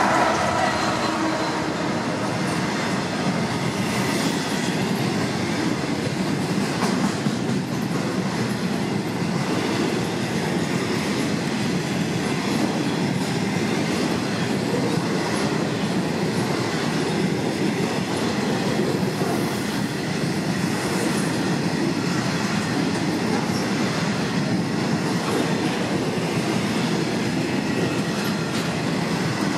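Freight train passing at speed: the diesel locomotive's engine note fades in the first second, then the covered wagons roll past with a steady rumble of wheels on the rails.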